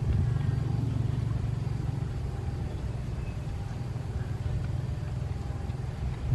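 Diesel locomotive engine running with a steady low hum, easing off slightly about two seconds in.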